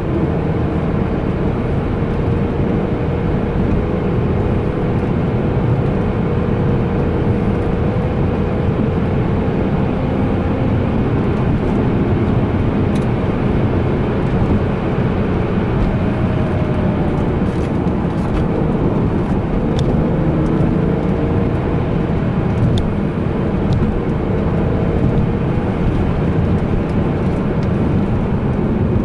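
BMW E46 M3 heard from inside the cabin, cruising at a steady speed: the S54 inline-six drones low under a dense, even rumble of road noise, with a few faint ticks.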